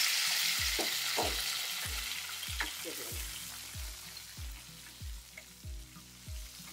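Sliced onions, curry leaves and whole spices frying in hot oil in a steel pressure cooker, stirred with a wooden spatula. The sizzle is loudest at the start and then dies down.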